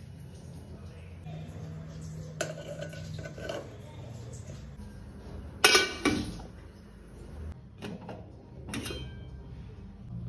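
Aluminium cookware clattering as idli plates and a steamer pot are handled, with a loud ringing metal clank a little past halfway, at the moment the steamer lid is set on, and a few lighter knocks after it.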